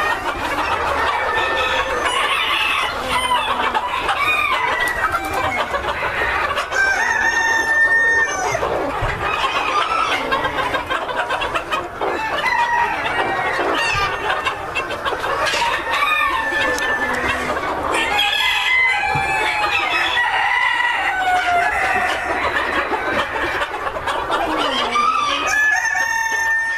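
A large flock of White Silkie bantam chickens clucking and calling over one another without pause, with a few drawn-out crows among the calls.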